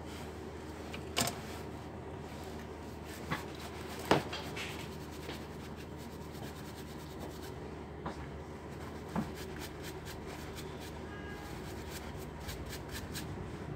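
Small plastic clicks and taps with light rubbing as laptop cooling fans are handled and cleaned of dust: a few sharp clicks spread through, then a run of quick faint ticks near the end, over a steady low hum.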